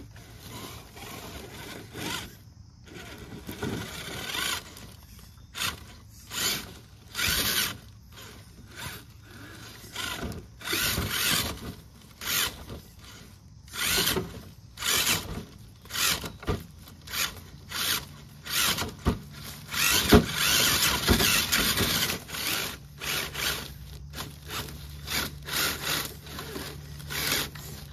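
Axial SCX10 III RC rock crawler driven in short, irregular throttle bursts, its electric motor and gears whirring as it works its way over tall sticks.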